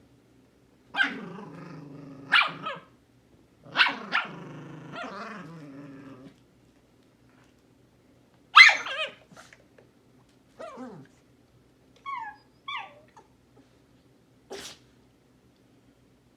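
Two dogs fighting over a blanket: growls with sharp barks in two long stretches over the first six seconds, then a loud sharp bark, a falling whine-like call, a couple of small high yips and one last short sharp sound, with quiet gaps between.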